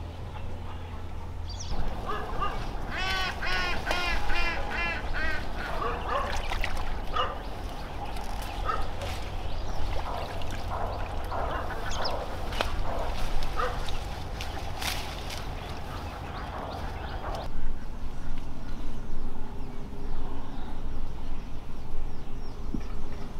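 Ducks quacking: a quick run of about eight calls a few seconds in, then scattered calls.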